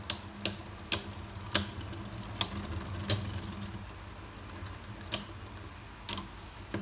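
Two Beyblade Burst tops, a counterfeit Vise Leopard against a real one, spinning in a plastic stadium. Their tips make a low whir on the floor, and there are about nine sharp clacks at uneven intervals as they collide, fewer after about three seconds as the whir fades. The counterfeit is very hard and does not burst on impact.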